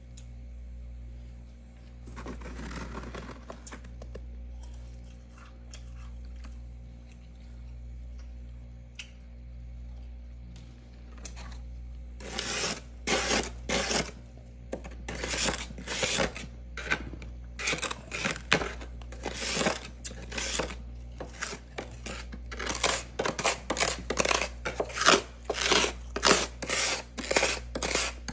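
Crunching of loose freezer frost: a short scraping burst about two seconds in, then from about twelve seconds a long run of loud, quick crunches. A steady low hum runs underneath.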